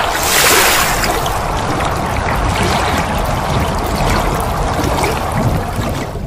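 Splashing-water sound effect of a logo intro: a dense, steady wash of water noise that swells in the first second and fades near the end.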